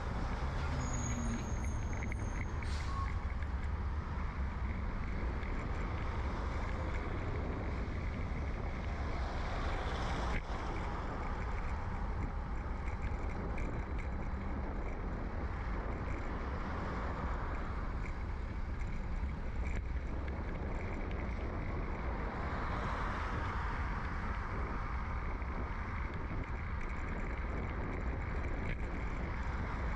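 Steady wind and road rumble from a bicycle riding along a street, picked up by a bike-mounted microphone in a furry windshield, with motor traffic swelling and fading a few times as vehicles pass. A brief high whine sounds about a second in.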